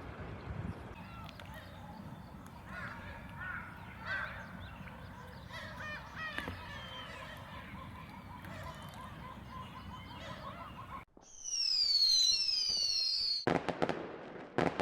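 Birds calling over a low outdoor rumble. About eleven seconds in, the sound cuts abruptly to several high falling whistles, followed by a rapid string of sharp crackling bangs.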